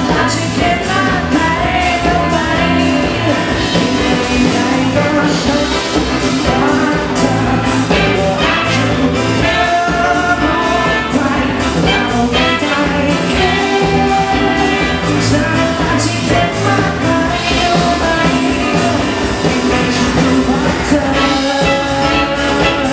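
Live pop band playing with a male lead singer and a horn section of trumpet, saxophone and trombone, over a steady drum beat.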